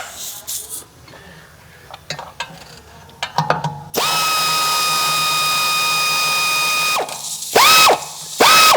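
A cordless power tool's motor whines steadily for about three seconds, then gives two short bursts, spinning out a 17 mm wheel hub bearing bolt that has already been broken loose. A few clicks of handling the tool come before it.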